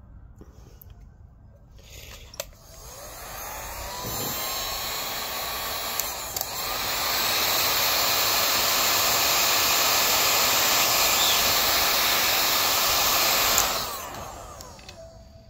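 Handheld electric heat gun switched on with a click, its fan whining up to a steady blowing rush, stepped up once more with a second click to a louder setting, then switched off near the end and winding down.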